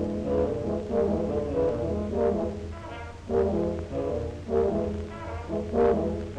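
Orchestral film score led by brass, in short accented phrases that swell and fall about every half second to second.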